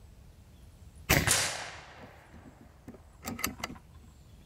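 AirForce Condor .22 PCP air rifle firing a slug: one sharp, loud report about a second in that rings out briefly. About two seconds later comes a quick run of metallic clicks, the rifle being cocked and loaded for the next shot.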